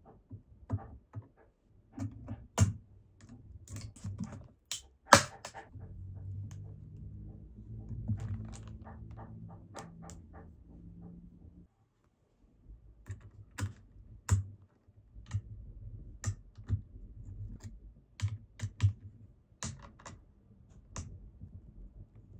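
Irregular small clicks and taps of hands working the metal and plastic parts of an AM5 CPU socket on a motherboard as the processor is seated and the socket's load plate and lever are closed, with one sharp, loud click about five seconds in. A low rumble runs from about six to twelve seconds.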